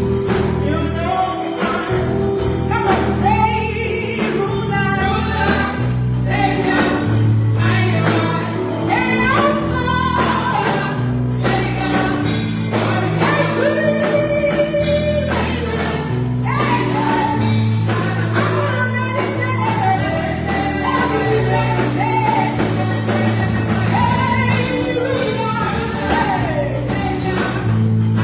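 Gospel music with group singing over a steady bass line.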